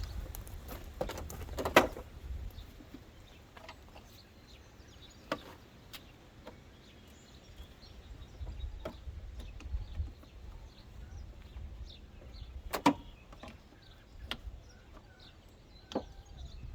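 Scattered clicks and knocks from hooking up a jump starter pack and its clamps at the truck's battery, over a low rumble; the engine is not running.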